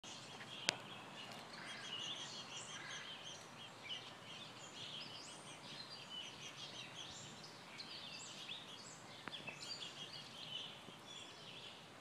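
Small birds chirping and twittering in a continuous chatter of short, high calls. A single sharp click sounds a little under a second in.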